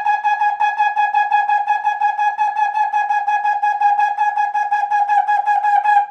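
Trombone playing a long, fast stream of evenly tongued high Gs on a single breath, all on the same pitch, as a breath-endurance exercise. The run stops abruptly just before the end.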